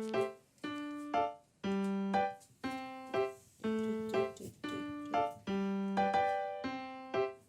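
Background music: a light keyboard tune with an electric-piano sound, short notes in a regular repeating pattern with brief gaps between them.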